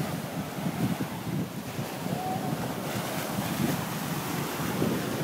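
Ocean surf washing on the shore, with wind buffeting the microphone.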